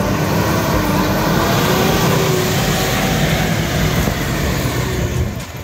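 Four-wheel-drive vehicle's engine running hard under load on a rough off-road track, its pitch rising slowly as it revs up.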